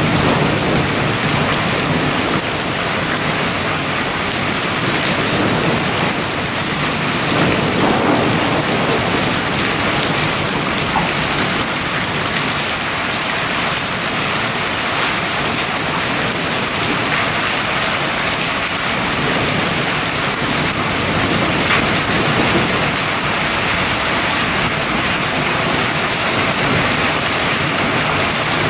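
Heavy rain falling steadily in a thunderstorm, a dense even hiss, with a low rumble of thunder swelling about eight seconds in.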